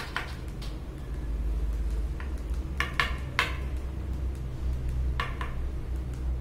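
A few light clicks and clinks, like small hard objects tapped or set down on a desk, a couple of them close together about three seconds in, over a steady low rumble.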